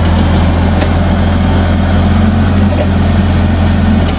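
A motor running steadily with a loud, constant low hum, like an engine idling.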